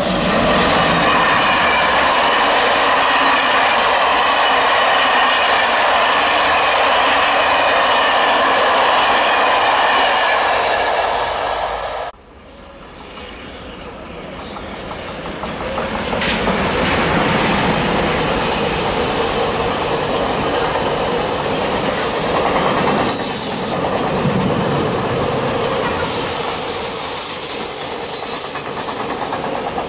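A train running past at speed, cut off suddenly about twelve seconds in. Then an electric locomotive hauling a long freight train of car-carrier wagons comes closer, getting louder, and the wagons roll past with clattering wheels and a high steady wheel squeal.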